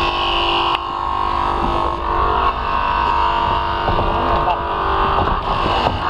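Small engine-driven hydraulic power unit for rescue tools running steadily, a constant engine drone, with a light knock about a second in.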